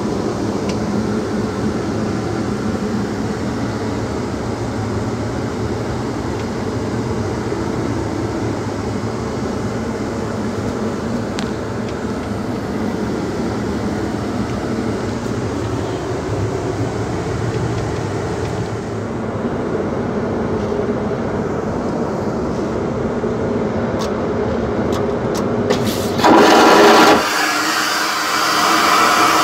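Steady drone of an airliner cabin, heard inside the lavatory. Near the end an aircraft vacuum toilet flushes: a loud rushing whoosh lasting a few seconds, broken by a short dip, then cutting off.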